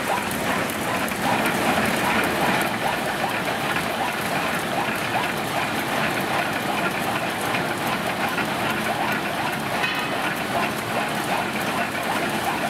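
Thread rolling machine running while rolling threads onto screw blanks: a steady, dense clatter of rapid ticks.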